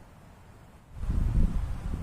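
Wind buffeting the microphone as a low, gusty rumble. It starts abruptly about a second in, after a quiet stretch.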